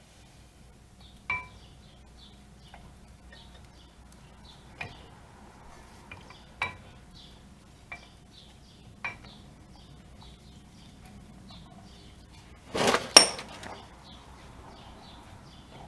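Metal tools and parts clinking: a handful of single sharp clinks a second or two apart, then a louder double clatter near the end.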